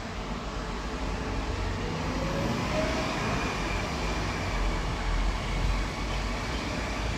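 Steady background rumble and hiss of ambient noise, with no distinct event standing out.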